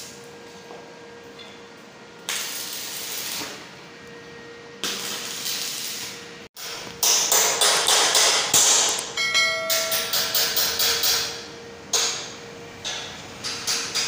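Two short bursts of arc-welding crackle on a steel window grill, then a quick run of hammer blows on the steel bars, about three a second, with the metal ringing, and a few more blows near the end.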